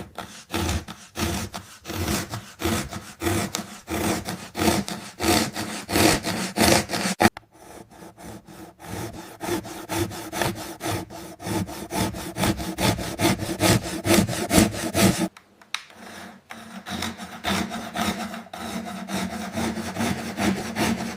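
A hand saw cutting through a toy in steady back-and-forth strokes, about two to three a second. The strokes go lighter for a couple of seconds about a third of the way in and stop briefly about three-quarters of the way through before resuming.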